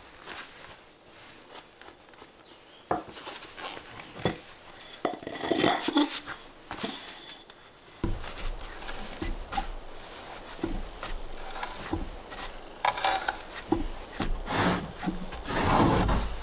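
Quiet rustling and small knocks, then a T-handle hand auger turning in a carved wooden bowl, creaking and scraping as the bit bores into the wood, with a louder grind near the end.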